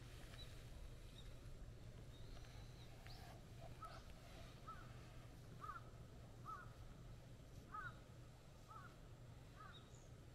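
Faint short animal calls, repeated about once a second for the second half, over a low steady background hum.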